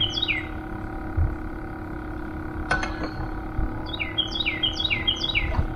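A songbird singing a quick phrase of five or six down-slurred whistled notes, heard at the very start and again near the end, over a faint steady hum. A single sharp knock falls about halfway through.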